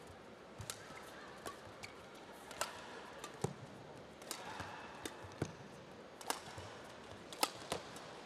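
Badminton rally: sharp clicks of rackets striking the shuttlecock, back and forth about once every second, over a low steady hall background.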